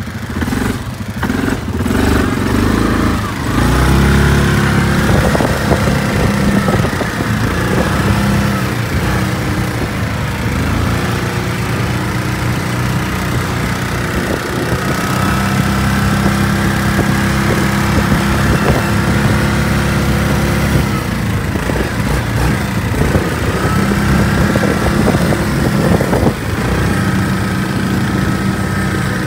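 ATV engine running, rising and falling with the throttle as it circles on snow, with a whine above it that rises and falls.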